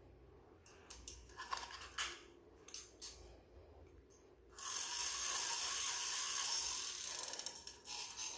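Spinning fishing reel being worked by hand: a few light clicks and knocks, then from about halfway a steady mechanical ratcheting run of about three seconds as the spool is turned through the drag, a check that the spool turns freely and the drag works.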